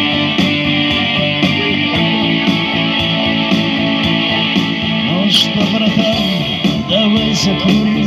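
Electric guitar playing an instrumental break of a slow song through small loudspeakers, over a steady backing beat.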